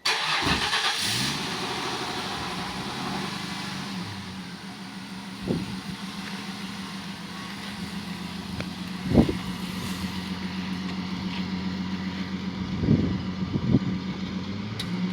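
A Ford Mustang's V6 engine running: loud for about the first second, then settling into a steady idle, with a few short thumps along the way.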